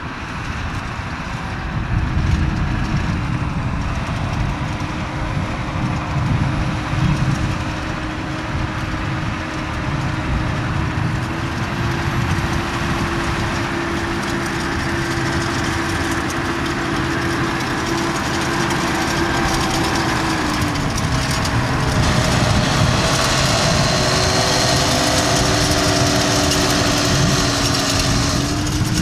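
Massey Ferguson 7718 tractor's six-cylinder diesel engine running steadily while it pulls a slurry tanker across a field. Its note steps up slightly about eleven seconds in and drops again around twenty-one seconds.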